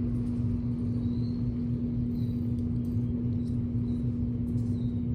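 Steady low machine hum with a constant drone and a pulsing rumble under it, unchanging throughout. A few faint, short high chirps sound over it now and then.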